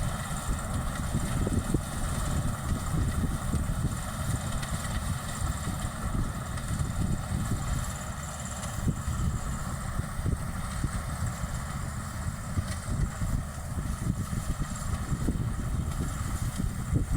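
Maxxi Bimo 102L combine harvester running steadily, its engine giving a continuous low drone.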